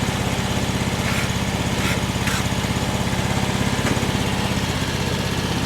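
Homemade sawmill's engine running steadily at a constant speed, with a few brief faint hisses about one to two seconds in.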